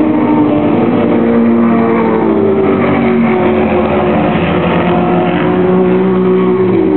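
Ford Falcon FPV GT's supercharged 5.0-litre V8 running, a steady exhaust note whose pitch shifts up and down a little as the revs vary, falling away near the end.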